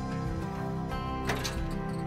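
Instrumental background music with sustained notes.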